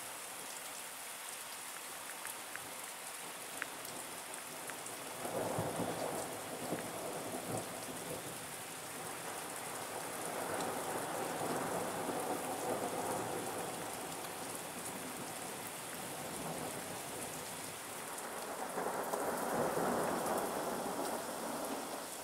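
Steady rain falling through a thunderstorm, with rolling thunder coming in long swells that build and fade: the first about five seconds in, a longer one in the middle and another near the end.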